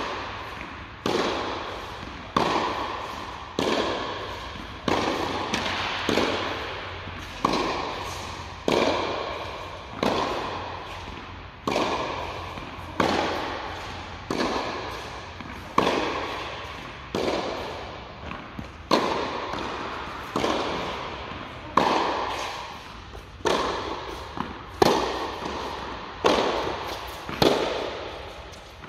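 Tennis ball being hit with a racket and bouncing during groundstroke practice: a sharp pop about every second and a quarter, each one ringing out in the long echo of an enclosed indoor tennis hall.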